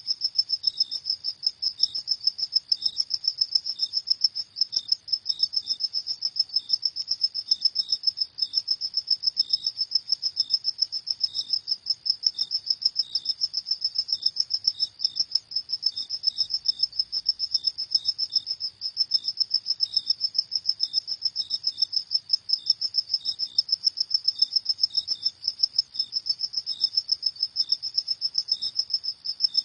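Field crickets chirping at night in a steady, rapid pulsing trill, with a second, lower and slower chirp repeating alongside it.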